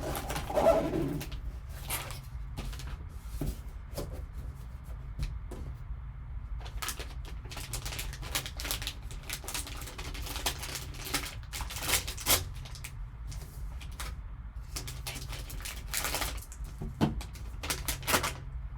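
A sports-card box and its packaging being opened and handled by hand: an irregular string of crackles, rustles and clicks over a steady low hum.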